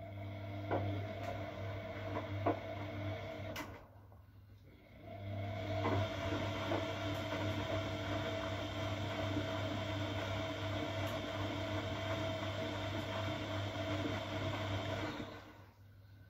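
Siemens Siwamat Perfecta SL washing machine's motor turning the drum during a delicates wash: about four seconds of running, a pause of just over a second, then about ten seconds more before it stops. A few light clicks come in the first spell.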